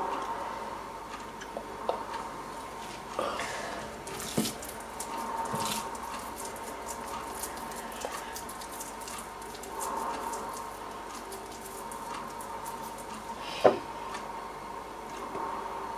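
Hands rolling raw minced-beef mixture into balls and coating them in flour: soft squishing and rubbing, with scattered light clicks of hands and food against the dishes and one sharp knock near the end. A faint steady hum runs underneath.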